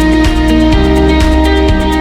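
Loud background music: rock with guitar and a steady, fast beat.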